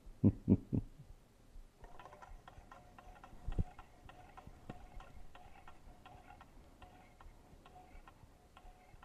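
Low-temperature Stirling engine being started by hand: a few thumps as the flywheel is flicked, then, from about two seconds in, the engine running on the heat of incandescent bulbs with steady light ticking, about four ticks a second, and one more thump a little later.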